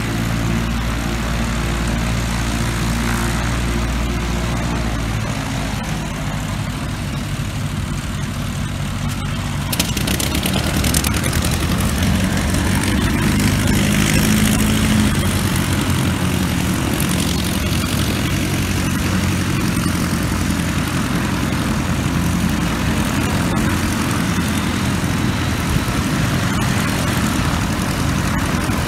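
Single-engine propeller light aircraft taxiing past, engines running steadily at low power. About ten seconds in the sound grows louder and fuller as one plane comes close, then stays loud as another follows.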